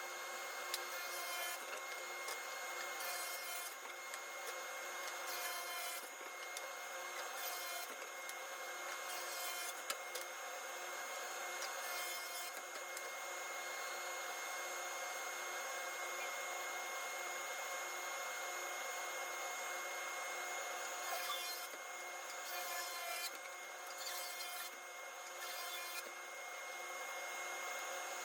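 Table saw running with a steady whine while cutting 3/4-inch birch plywood into pieces, with brief louder patches every few seconds as the cuts go through.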